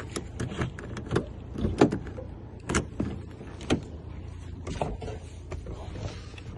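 Irregular light clicks and knocks, a few every second, with a steady low hum underneath.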